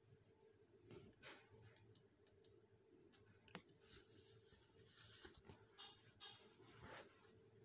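Near silence: faint room tone with a steady high-pitched whine, and a few faint clicks of a computer mouse in the first half.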